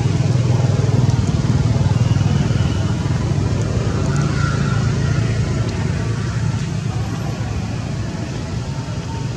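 Steady low engine hum of a motor vehicle running, easing off slightly toward the end.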